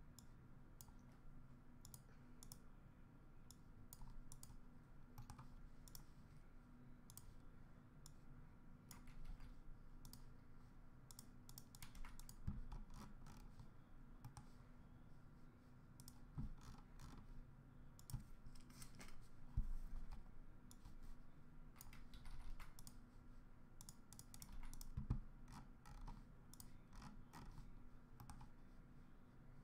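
Faint, irregular clicking throughout, with a few soft thumps in the middle and near the end.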